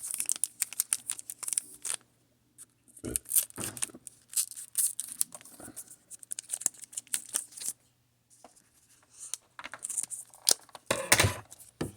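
Foil wrapper of a Pokémon trading card booster pack being torn open and crinkled: runs of crackling rips with short pauses, loudest near the end.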